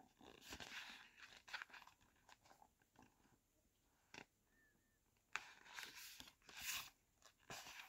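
Faint rustling and crinkling of a glossy photobook's paper pages under the fingers, with short louder rustles as a page is turned about six seconds in.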